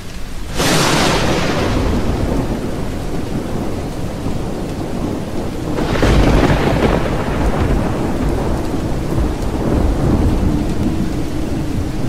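Thunderstorm: a sudden thunderclap about half a second in, then a second heavy peal about six seconds in, each rolling on and fading slowly, over steady rain.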